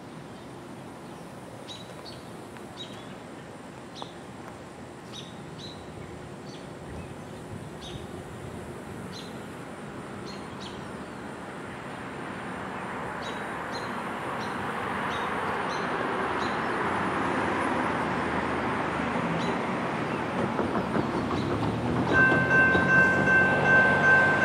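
Approaching freight train led by an EMD SD60 diesel locomotive: a broad rumble grows steadily louder over the second half, and about 22 s in the locomotive's air horn sounds a loud, steady chord of several notes. Birds chirp now and then in the first half.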